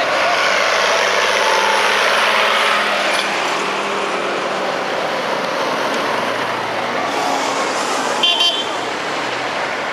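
Old truck and tractor engines running as they drive past close by, with tyre and engine noise. A short, high horn toot about eight seconds in.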